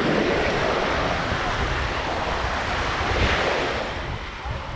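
Small surf breaking and washing up onto a sandy shore, with wind buffeting the microphone. The wash swells to its loudest about three seconds in, then eases.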